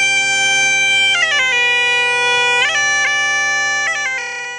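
Asturian gaita (bagpipe) playing a tune: the chanter melody steps between notes over one steady drone. The sound tails off near the end.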